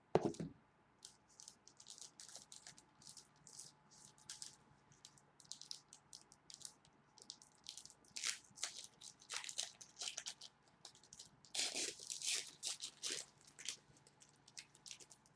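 A thump, then the foil wrapper of a football trading-card pack crinkling and tearing open as the cards are pulled out and handled: many short, scattered crackles, busiest about eight seconds in and again around twelve seconds.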